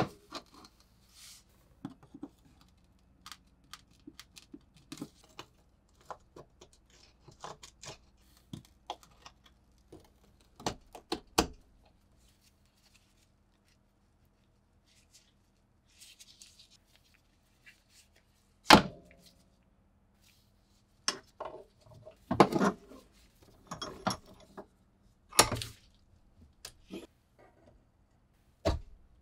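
Metallic clicks, rattles and knocks from a badly corroded old padlock and its parts being handled and worked, and set in a bench vise. Light scattered clicks in the first half, then several louder sharp knocks in the second half.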